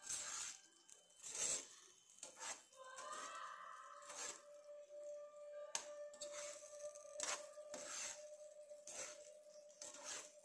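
Metal spoon scraping and knocking against a nonstick frying pan while stirring sticky fried Manchurian balls in thick sauce, a short stroke about once a second.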